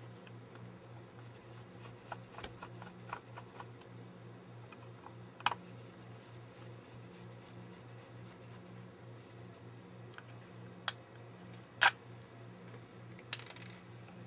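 Scattered small clicks and ticks of a precision screwdriver turning a tiny screw out of a Canon PowerShot SX60 HS camera body, the sharpest about five and a half and twelve seconds in, over a steady low hum.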